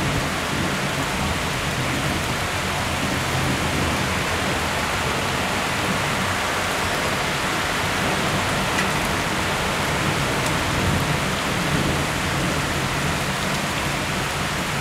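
Cloudburst: heavy rain pouring down in a steady, even hiss.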